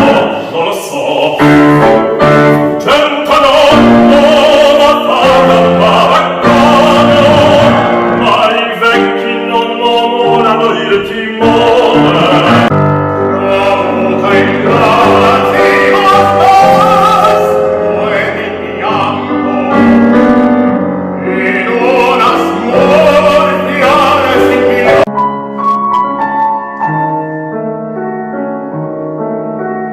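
Singing with piano accompaniment at a live concert. About 25 seconds in the voice stops and the piano plays on alone with lighter, higher notes.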